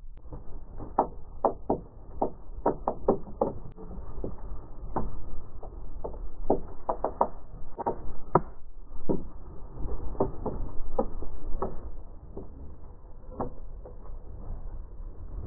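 Feral pigeons jostling in a wooden bird feeder: irregular sharp knocks and taps from beaks, feet and wings striking the boards, several a second, over a low rumble.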